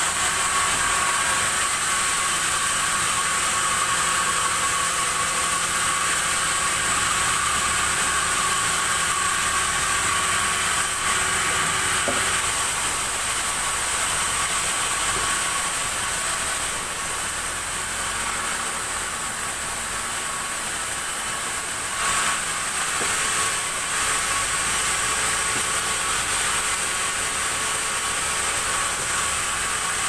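Sawmill saw running with a steady high whine while it saws a large acacia log on the carriage; slightly quieter for a while mid-way.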